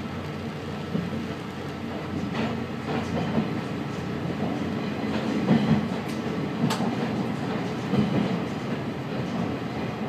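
KiHa 120 diesel railcar running along the line, heard from on board: a steady engine and rolling noise with occasional wheel clicks over rail joints. It grows a little louder in the second half as the train runs into a covered snow shed.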